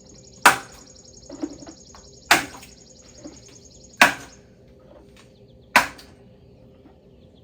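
Five sharp knocks at an even pace, about one every second and three quarters, with a high, fast-pulsing trill that stops a little past halfway.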